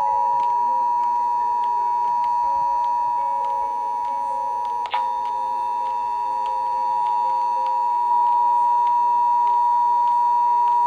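Emergency Alert System attention signal: a loud two-tone alert held as one continuous steady tone, with a brief click about halfway through.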